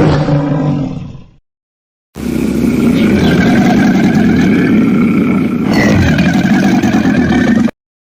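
Giganotosaurus roar sound effects: the tail of one roar fades out, then after a short gap a long, low, rough roar lasting about five seconds cuts off abruptly.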